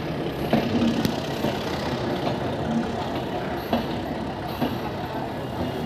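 A train rolling slowly over the tracks: a steady rumble with a few sharp clicks of wheels over rail joints and points.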